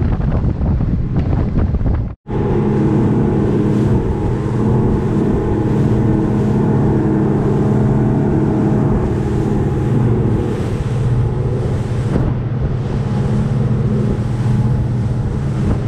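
Outboard-powered center-console fishing boat running at speed, with wind buffeting the microphone. After an abrupt cut about two seconds in, a steady engine drone over the rush of the wake.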